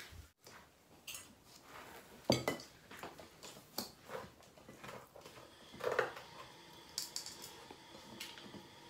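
Cutlery and serving spoon clinking and scraping against plates and a metal pot as rice and food are served at the table: scattered light knocks and clinks, the loudest about two and six seconds in.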